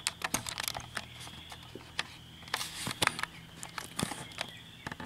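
Irregular light clicks and taps of handling: a loose run in the first second and a louder cluster about three seconds in. A faint steady high whine runs underneath.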